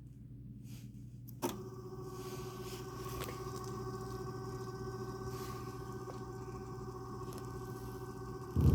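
A click as a transport key is pressed on a cassette deck, then the deck's motor winding the tape forward with a steady hum. A louder clunk comes near the end.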